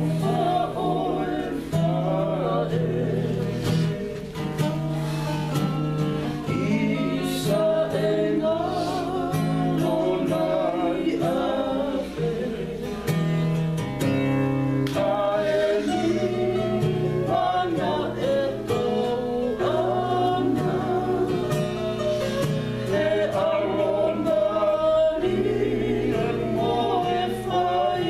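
A small group of voices, men and women, singing together in harmony, accompanied by an acoustic guitar.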